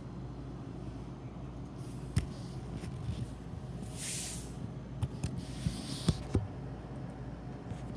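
Phone being handled and moved close to a floor: scattered knocks and rubbing, with one short hiss about four seconds in, over a steady low hum.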